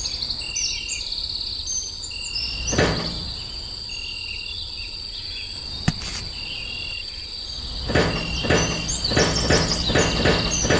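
Outdoor ambience of insects trilling steadily, with short repeated chirps and birds calling, and two sharp clicks. About eight seconds in, a fast irregular rattling with a low hum starts.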